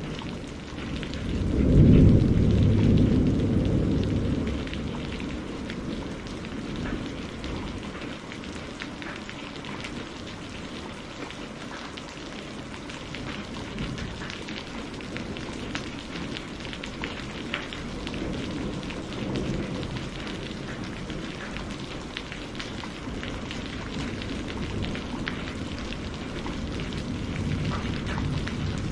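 Steady rain with scattered drops pattering, and a roll of thunder that swells about two seconds in and dies away over a few seconds; fainter rumbles follow later.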